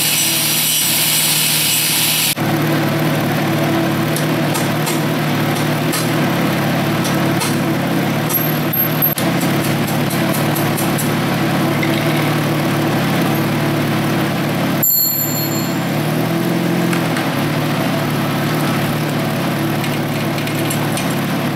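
Angle grinder grinding on a motorcycle drive chain at the rear sprocket for about the first two seconds, the way the pin heads are ground off to break a worn chain. After that a steady motor hum continues with scattered light metal clicks from tools working on the chain.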